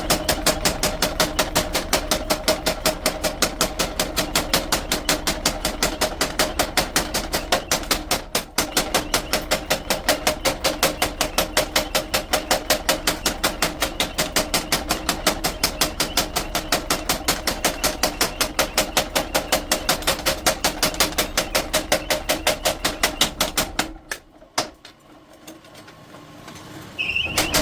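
Rapid, evenly spaced hammer blows on steel being forged into a khada blade, about four to five strikes a second. The hammering breaks off briefly about eight seconds in, stops about 24 seconds in, and starts again just before the end.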